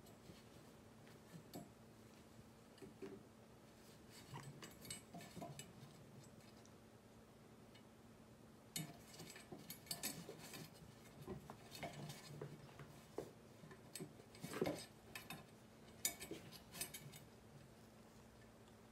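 Faint scattered clicks and scratchy rustles of a cat grooming itself and rolling on a shaggy rug, over a low steady hum in a near-silent room. They come thickest in the second half, the loudest a sharp click about three-quarters of the way through.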